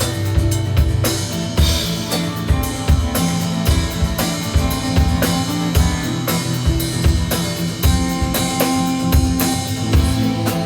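Rock band playing an instrumental passage: a steady drum-kit beat with kick and snare under held instrument notes.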